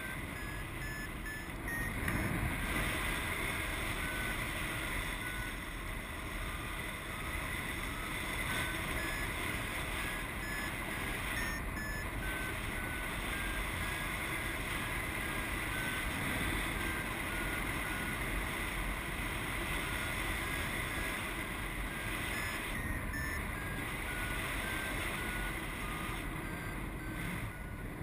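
Paragliding variometer beeping in short tones, a few a second, the pitch stepping up and down with the climb rate: the signal that the glider is climbing in lift. Steady wind rushes over the microphone underneath.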